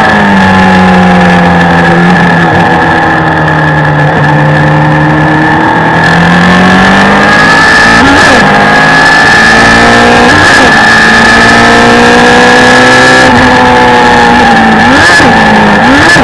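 Suzuki Hayabusa 1300 inline-four motorcycle engine in a race car, heard loud from the cockpit as it runs hard around the track. Its pitch slides up and down, with several quick sharp dips and recoveries where the gears change.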